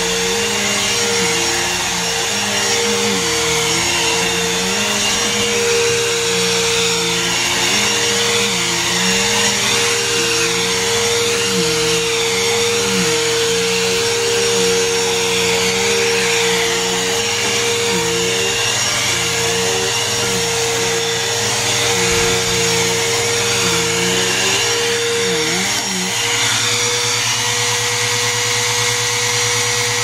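Vacuum cleaner running on carpet: a steady motor whine over rushing air, with a lower hum that dips and wavers in pitch every second or two as it is pushed across the carpet. Near the end the wavering stops and the hum holds steady.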